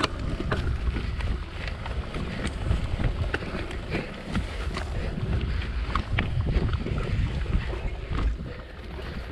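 Wind buffeting the microphone over the rumble of a mountain bike riding a rough dirt singletrack, with scattered sharp clicks and rattles from the bike jolting over bumps.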